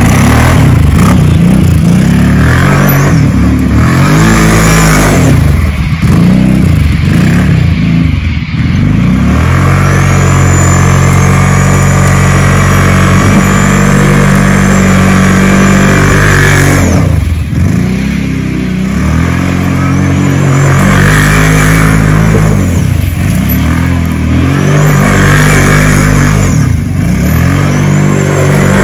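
650 cc quad bike engine revving hard, its pitch rising and falling over and over as the throttle is worked while it spins donuts in loose dirt. The revs are held high for several seconds in the middle, with a brief drop about seventeen seconds in.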